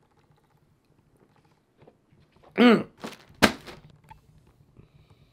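A man's short vocal sound with a rising-and-falling pitch about halfway through, then a single sharp thunk a moment later, followed by a few faint small knocks.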